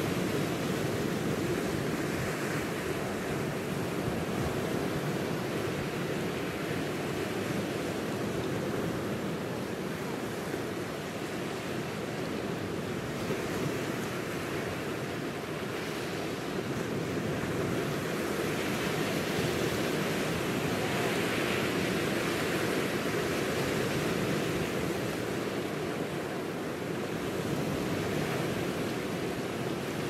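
Sea surf breaking and washing over a rocky, pebbly shore: a continuous wash of waves that swells gently in loudness, fullest about twenty seconds in.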